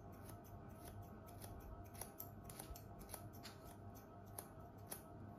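Hair-cutting scissors snipping through a raised section of long hair: a run of faint, repeated snips, a few a second.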